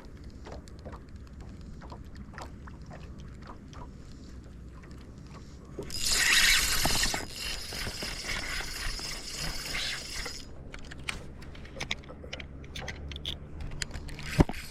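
Fishing reel being worked, its gears clicking and ticking. A loud hiss comes about six seconds in, and a sharp knock near the end.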